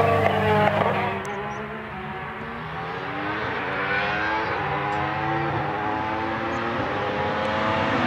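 Alfa Romeo 155 V6 TI DTM race car's V6 engine accelerating hard, its pitch climbing and dropping back at quick upshifts of the sequential gearbox. It grows louder as the car approaches.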